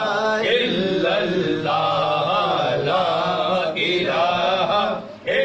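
Devotional Sufi chanting of an Arabic zikr, sung as a continuous melodic refrain, with a short break for breath about five seconds in.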